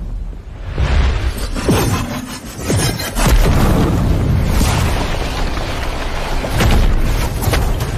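Cinematic explosion sound effects: a blast and a run of booms and impacts with debris, over background music. It gets louder about three seconds in.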